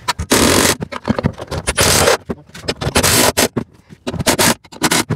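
Red cordless driver running in several short bursts of about half a second each, driving bolts through the steel mounting brackets of a cargo basket.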